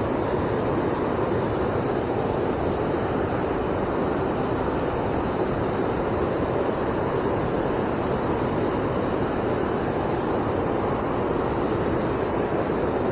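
Steady rush of a fast-flowing river running high and swollen after heavy rain.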